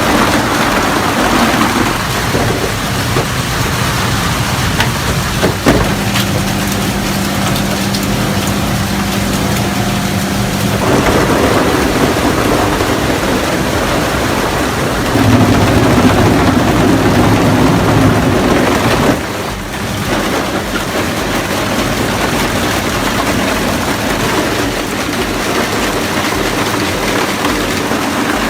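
Industrial shredding machinery running and breaking up material: a loud, dense grinding and crunching noise over a steady machine hum. The sound changes abruptly several times, as from one machine or load to another.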